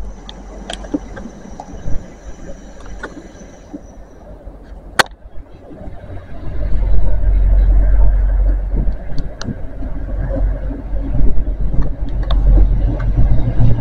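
Class 158 diesel multiple unit approaching and running into the station: from about six seconds in, a loud, steady, deep rumble of its diesel engine and wheels on the rails takes over from the quieter start.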